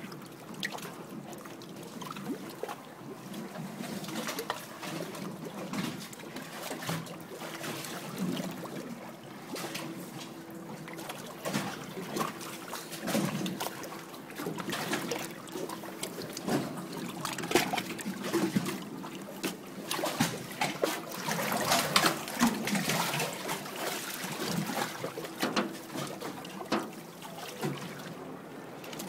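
Water splashing and trickling as a sea lion swims and splashes at the side of a boat, in irregular bursts that are strongest past the middle, with a faint steady hum underneath.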